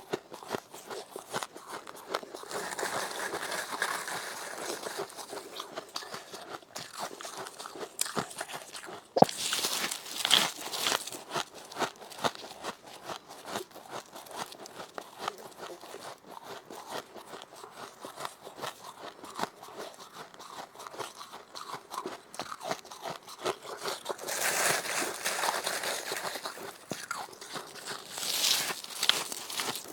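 Close-miked crunching and chewing of freezer frost (snow ice): a continuous run of small crisp crackles, broken by several louder bursts of crunching bites.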